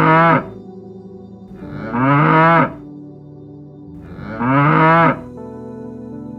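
Cow mooing: the same short moo repeated three times, about every two and a half seconds, over soft background music.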